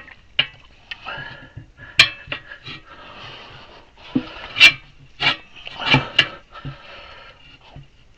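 Heavy breathing from exertion while steel tire irons lever a heavy-equipment tire bead onto its rim, with sharp metal clanks and knocks, the loudest about two seconds and four and a half seconds in, then twice in quick succession near six seconds.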